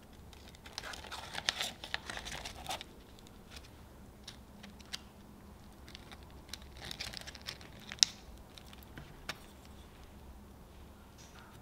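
Crinkling and crackling as hands press crisp-crusted chocolate biscuit into a mousse ring lined with a plastic acetate strip. It comes in two spells, about a second in and again around seven seconds in, with a sharp click near the end of the second.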